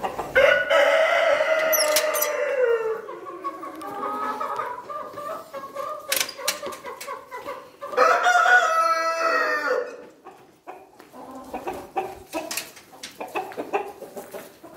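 Australorp rooster crowing twice: a long crow about half a second in that falls in pitch at its end, and a second crow about eight seconds in, with hens clucking softly in between.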